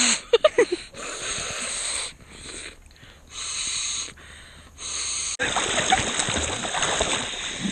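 Breath blown by mouth into the valve of a leaking inflatable pink river tube to top it up: three or four long puffs of about a second each, with short gasps for air in between. About five seconds in, it cuts sharply to water splashing as a person drops into an inflatable tube on the river.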